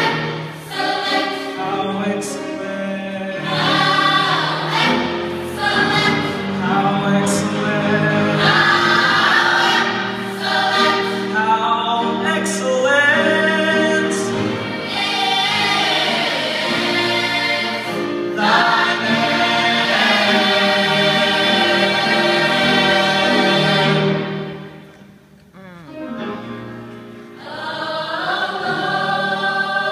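Mixed-voice gospel choir singing in full harmony, the voices holding long chords. The singing falls away briefly about 25 seconds in, then the choir comes back in.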